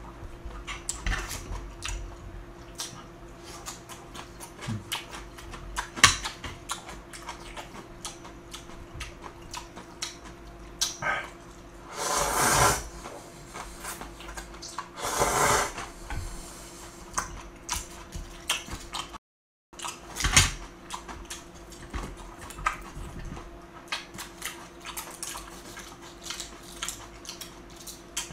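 Eating jjamppong noodles with chopsticks: chopsticks clicking against the bowl and chewing, with two long noisy slurps of noodles about midway. The sound cuts out completely for a moment just after that.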